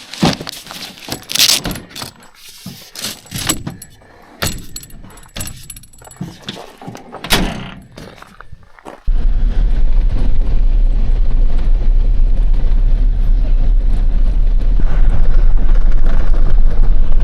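Scattered clicks, knocks and rattles of camping gear being handled and packed. About nine seconds in, this gives way suddenly to a loud, steady low rumble of vehicle road noise on the drive.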